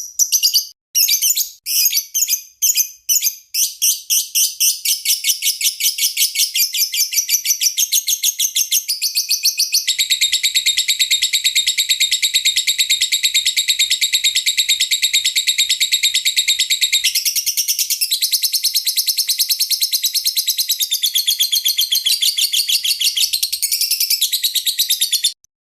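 Lovebird chirping. It begins with separate sharp chirps that quicken into a fast, unbroken chattering trill lasting over twenty seconds, then cuts off abruptly near the end. This is a masteran recording, a song track played to train other birds.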